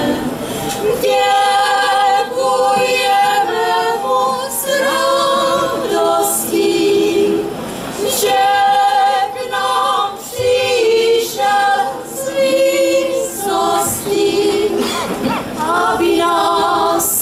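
Women's folk choir singing a Moravian Christmas carol in harmony, several voices moving together in sung phrases with short breaks between them.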